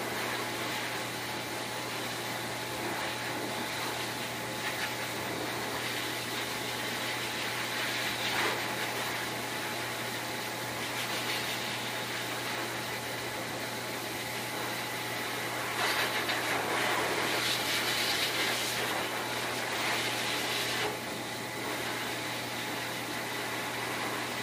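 Hose-type pet grooming blower dryer running, blowing air onto a dog's coat: a steady rush of air over a motor hum. It grows louder for about five seconds a little past the middle.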